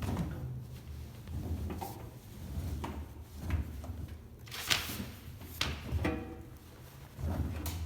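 Beko washing machine drum turning on a 60 °C towel wash, the wet towels tumbling and sloshing as soft, irregular thumps and swishes about once a second.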